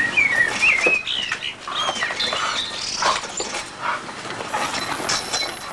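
Dog hanging on a tyre and giving short, high-pitched, wavering whines, with scattered knocks and scuffles.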